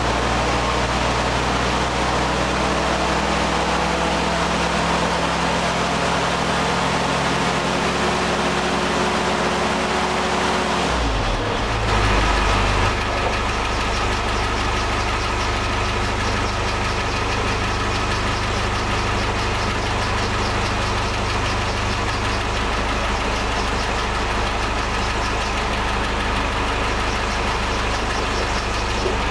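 Military jeep's freshly rebuilt engine idling on its first run after a top-end rebuild with new valves. About eleven seconds in its note changes with a brief rise in level, then it settles to a steady idle.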